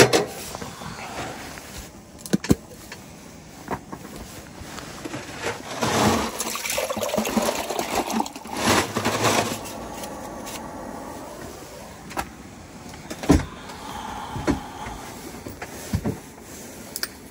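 Camp gear being handled: scattered knocks and clicks, and a few seconds of water poured from a plastic jug into a cup near the middle.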